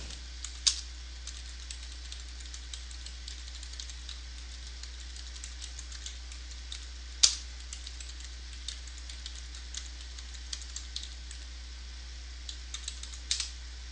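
Computer keyboard being typed on: scattered light key clicks, with a few louder keystrokes about a second in, around the middle and near the end, over a faint steady low hum.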